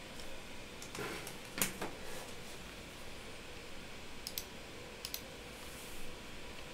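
A few sharp clicks from a computer's mouse and keyboard, with two quick paired clicks a little past the middle, over a faint steady room hiss.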